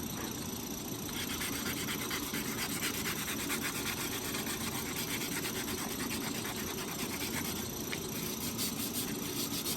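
220-grit sandpaper rubbed back and forth on a grinder mixer's steel shaft in rapid, steady strokes, starting about a second in. The shaft is being cleaned up so the new bearings will slide on.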